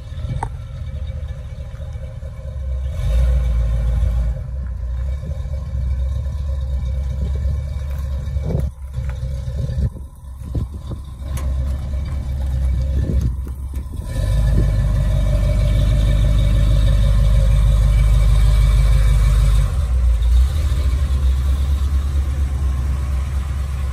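1977 Chevrolet C20 pickup's 454 big-block V8 running as the truck rolls slowly along, then running close by, louder and with an even pulsing from a little past halfway.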